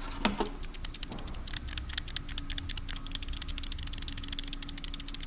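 A worn Mazda Miata timing belt tensioner pulley rattling as it is worked by hand: quick, irregular clicking from play in its bearing. This play is the source of the clunking rattle under the timing covers.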